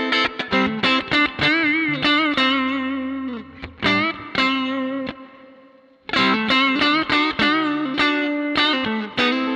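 Electric guitar with distortion playing quick phrases, the held notes wavering in pitch. About three and a half seconds in, a note dips down and fades out, and playing starts again about two seconds later.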